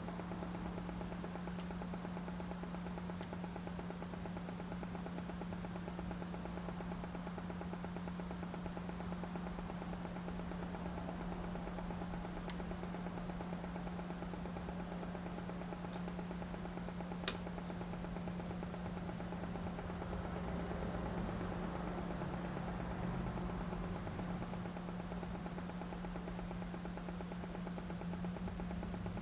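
Steady low electrical hum from the bench electronics, with a few faint scattered clicks and one sharper click about 17 seconds in.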